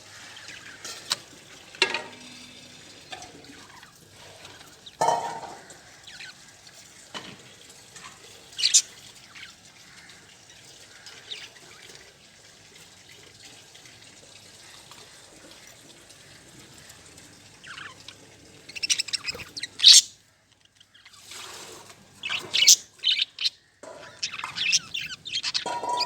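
Budgerigars chirping in short, high calls: a few scattered chirps at first, a quieter spell in the middle, then a busy run of rapid chirps over the last several seconds.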